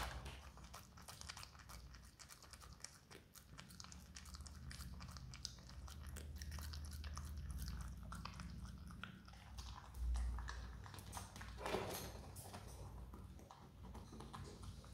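Himalayan marmot gnawing and chewing the crust of a large bread loaf: a steady run of fine, rapid crunching clicks, with a low thump about ten seconds in and a louder crunch just before twelve seconds.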